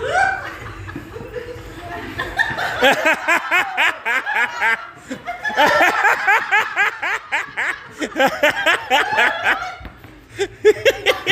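People laughing hard, in two long rounds of rapid ha-ha-ha: the first about two and a half seconds in, the second, longer, from about five and a half seconds in.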